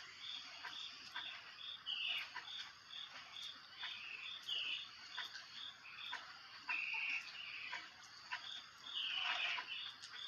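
Animal calls in the wild: a steady run of short, high, evenly spaced pips, about two and a half a second, with a few louder calls that slide downward, over a steady high hiss.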